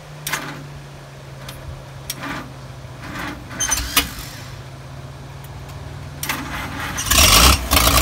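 Scattered clicks and small metal rattles as wires and parts are handled at the engine over a steady low hum. About seven seconds in, the old Dynahoe backhoe's engine is cranked and catches, running loudly.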